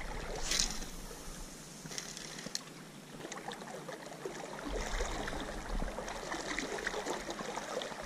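Gentle river water flowing around a wading angler, with a brief swish about half a second in as a spinning rod casts a topwater lure, then faint clicking from the reel during the retrieve.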